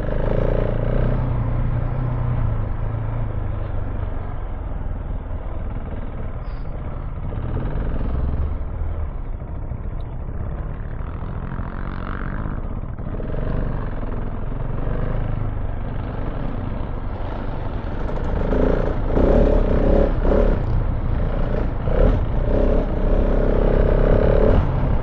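Single-cylinder KTM 690 Enduro R engine running under way on a dirt track, with tyre and wind noise. It gets louder about three-quarters of the way through, with several knocks and clatters.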